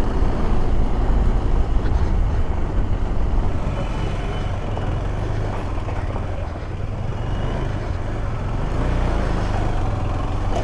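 KTM 390 Adventure's single-cylinder engine running steadily, a low rumble with road noise as the bike rides along.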